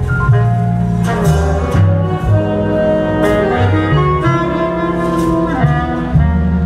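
A jazz big band playing: saxophone and brass sections over upright bass and drums, with the bass notes moving about twice a second and cymbal strokes cutting through.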